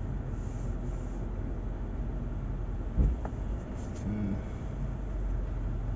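Steady low rumble of a car in stop-and-go traffic, heard from inside the cabin, with one sharp thump about three seconds in.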